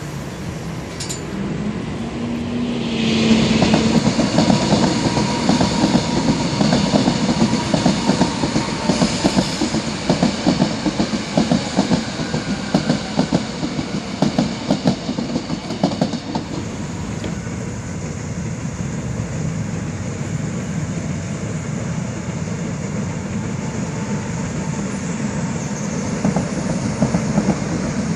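Seoul Line 1 rheostat-control electric train passing close, its wheels clacking rapidly over the rail joints with a whine over the top. About halfway through the clacking dies away into a steadier, quieter rumble of train running noise.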